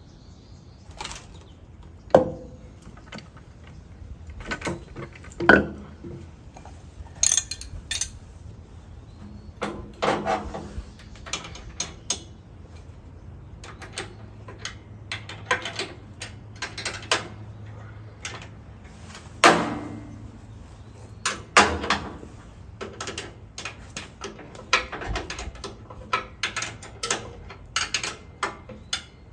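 A socket ratchet clicking and steel hand tools clinking and knocking against a metal lathe bed and stand while the bed's mounting bolts are worked on after a shim is added. The clicks come irregularly, with a few sharper knocks standing out.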